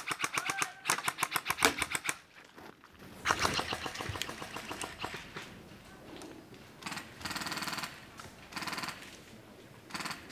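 Airsoft guns firing in rapid full-auto bursts, each a fast even rattle of shots. Two bursts come in the first two seconds, a longer one from about three to five seconds, and two shorter, fainter bursts near eight and nine seconds.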